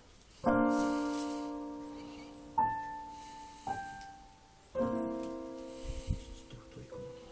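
Slow piano music: chords and single notes struck every one to two seconds, each left to ring and fade.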